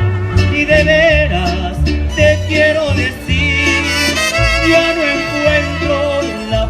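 Mariachi band playing a passage of the melody: violins with vibrato carry the tune over low, steady bass notes.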